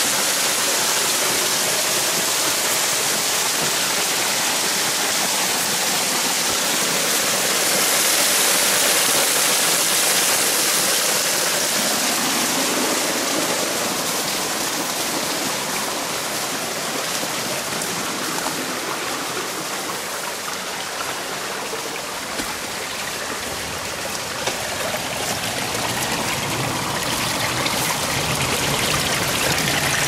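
Water rushing steadily from a small waterfall and its stream, an even splashing hiss. It eases a little past the middle and grows louder again near the end.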